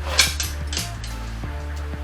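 Background music with a steady beat: a repeating bass line and sharp percussion hits about every half second.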